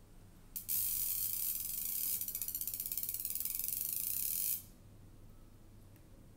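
A fast, high-pitched mechanical buzzing rattle from a kinetic sculpture of wire and alligator-clip clamps inside a clear acrylic tube. It starts suddenly just over half a second in and cuts off about four seconds later.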